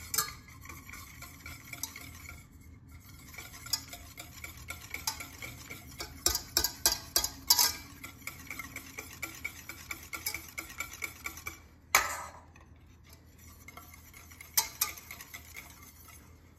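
Wire whisk beating egg yolks by hand in a stainless steel pot: a quick, uneven run of light clicks and scrapes of the wires against the metal, with a few louder knocks near the middle and toward the end.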